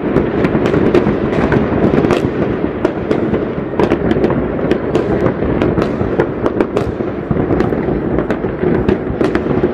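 Many fireworks going off across a town at once, blending into a continuous rumble of overlapping bangs with frequent sharp cracks.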